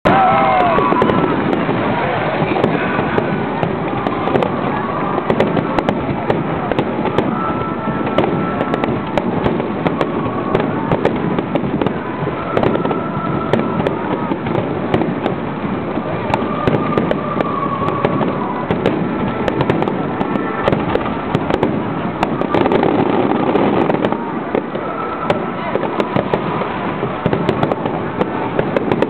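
Fireworks display: many bursts and crackling pops going off in quick succession, without a break.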